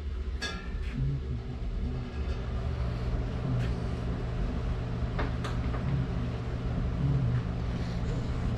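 Steady low mechanical hum of shop background noise, with a ringing metallic clink about half a second in, as a rocker-arm assembly is handled, and a few faint clicks later.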